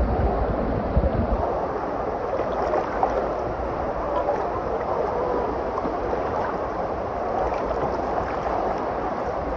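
Water park wave-pool water sloshing and splashing in a steady, dense wash of noise, with a low rumble that is heaviest in the first second or so.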